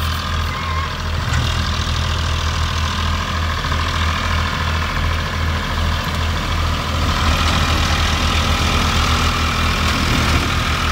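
An Eicher tractor's diesel engine runs steadily, powering a paddy thresher whose drum and fans whir continuously. About seven seconds in, the whir grows a little louder.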